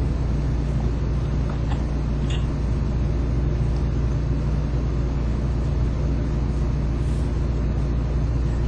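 Steady low hum or rumble, with two faint clicks about two seconds in.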